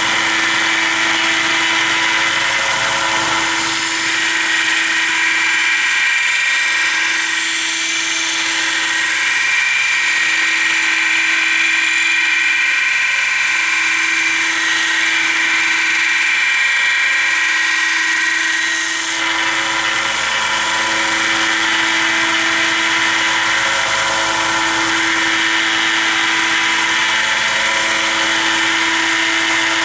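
Belt grinder running with an 80-grit belt while a folding knife blade's primary grind is ground down on it: a steady motor hum with a high hiss of abrasive on steel. The hiss changes abruptly about two-thirds of the way through.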